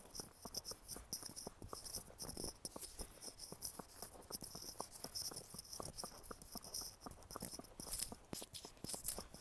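Thoroughbred horse walking on a paved lane: a steady run of light hoof clops, with the bridle and bit rattling.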